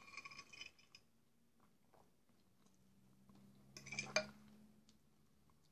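Metal spoon clinking and scraping against a ceramic bowl of jellied meat, once at the start with a brief ringing and again about four seconds in, ending in a sharp click. Quiet chewing in between.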